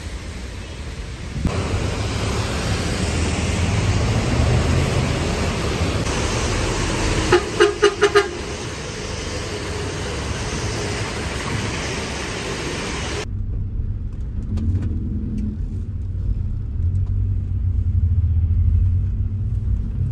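Steady noise of a wet city street with road traffic, and a car horn tooting four short times about seven seconds in. About two-thirds of the way through it cuts to the muffled low rumble of a vehicle's engine and road noise, heard from inside the vehicle.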